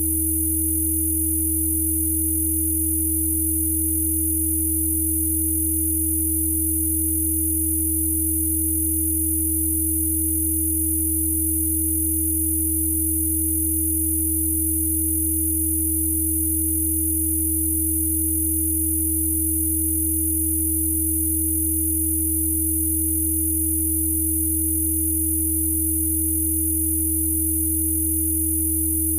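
Electronically generated Rife frequency tones: a low hum, a middle tone and several thin high-pitched whines sounding together, steady and unchanging.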